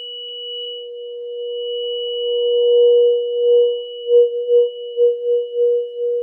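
Tuning fork ringing after a strike on a rubber activator: one long steady tone with a faint high overtone, which begins to waver in quick pulses of loudness about four seconds in.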